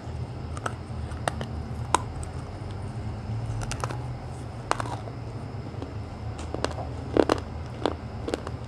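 Slate pencil being bitten and chewed: a series of sharp, dry cracks and crunches at uneven intervals, the loudest about 7 seconds in, over a steady low hum.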